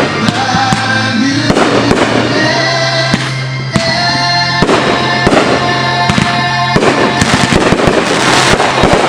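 Aerial fireworks bursting in quick succession, bangs and crackling over recorded music, growing densest near the end.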